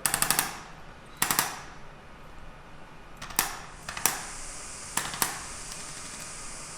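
Handheld chiropractic adjusting instrument firing short bursts of rapid clicking taps, about six bursts, the first two lasting about half a second and the later ones briefer.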